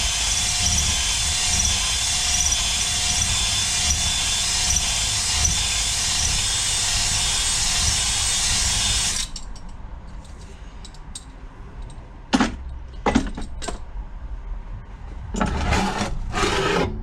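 Drill spinning a cylinder hone in the bore of a 12 hp Briggs & Stratton engine, putting cross-hatching back on the cylinder wall: a steady grinding run that stops suddenly about nine seconds in. A few sharp knocks and some rattling handling noise follow.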